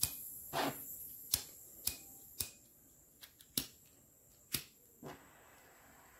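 About ten sharp, irregular clicks as the controls of a butane soldering iron are worked while its flame is adjusted, over a faint steady high hiss that fades about five seconds in.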